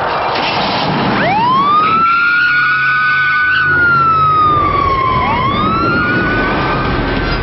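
Police car siren wailing: it rises in pitch a little over a second in, holds and slowly sinks, then rises again about five seconds in.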